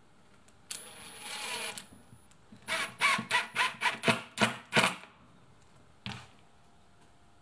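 Cordless impact driver driving screws through an aluminium table-mount plate into plywood. A brief motor whir comes about a second in, then a rapid run of about eight loud sharp strokes over two seconds, then a single click near the end.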